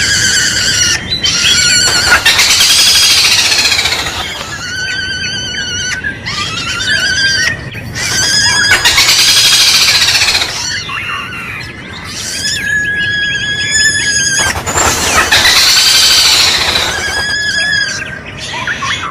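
Red-billed malkoha (kadalan kembang) calling in a repeating cycle about every six to seven seconds. Each cycle has a loud, harsh, arching call of about two seconds, followed by wavering, trilled notes.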